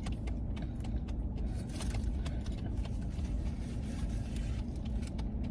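Steady low rumble of a car engine running, heard inside the cabin, with faint scattered light clicks.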